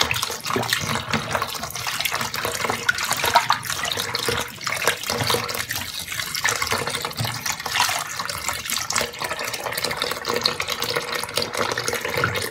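Kitchen tap running into a sink, the stream splashing over spinach leaves and hands in a plastic colander as the leaves are rubbed clean. The water stops abruptly right at the end.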